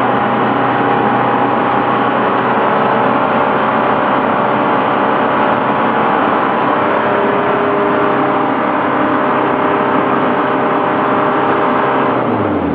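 Diesel engine held at high revs, running loud and steady, then the revs fall away near the end.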